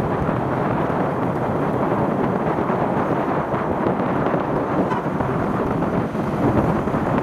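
Wind buffeting a handheld phone's microphone as it moves along the road: a steady, loud rushing rumble.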